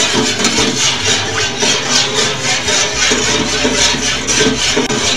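A metal spoon stirring and scraping around a pot of coconut-milk sauce as it heats, in a steady rhythm of strokes a few times a second.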